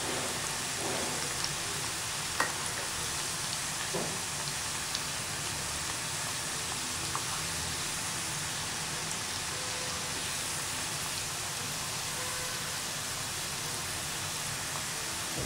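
Batter-and-crumb-coated snake gourd rings deep-frying in hot oil: a steady sizzle, with a couple of faint ticks in the first few seconds.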